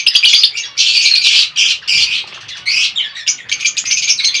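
A flock of caged small parrots calling loudly, with many high-pitched squawks and chirps overlapping in bursts and short gaps between them.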